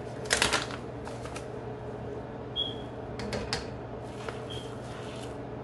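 Himalayan salt being added to a cooking pot from its container: a short rattling burst about half a second in, then scattered clicks and rattles, over a steady low hum.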